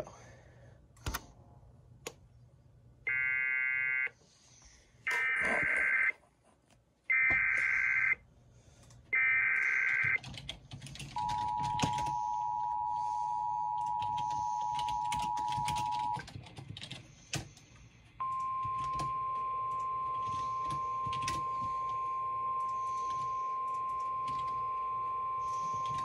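Sage EAS ENDEC sending an Emergency Alert System alert: a button click, then four short bursts of warbling SAME header data tones, then the five-second two-tone EAS attention signal. After a short pause, the stored NOAA Weather Radio recording begins with its steady single-tone warning alarm, held for about nine seconds.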